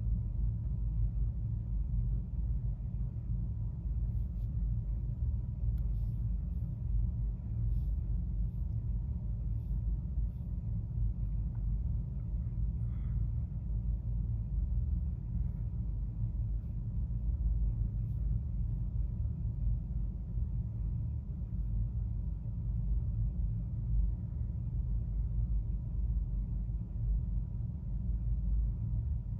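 Steady low rumble with no clear pattern.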